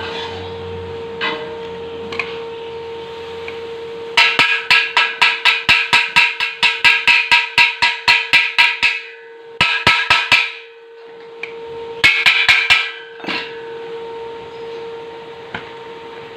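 Hammer striking hollow steel tubing in quick runs of blows, about four a second, the metal ringing after each strike; a short second run follows, then four last blows near the end. A steady hum runs underneath.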